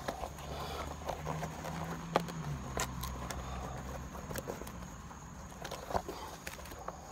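Scattered crackles and sharp clicks as hands flex and pick at the crumbling rubber sole and torn upper of a worn-out Timberland boat shoe that is breaking apart, over a low steady hum.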